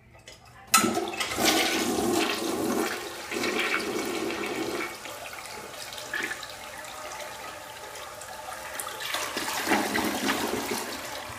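Galaxy toilet flushing: the flush starts suddenly about a second in with a loud rush of water swirling into the bowl. It then settles to a steadier drain, with a second loud surge near the end as the bowl empties down the trap.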